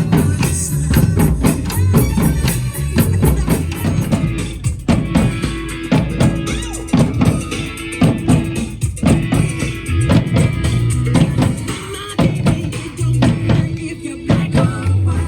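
Live drum show: several drums, with deep bass-drum hits, played in a fast, dense rhythm over accompanying music.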